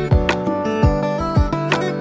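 Background music with a steady beat, about two low thumps a second under sustained melodic tones.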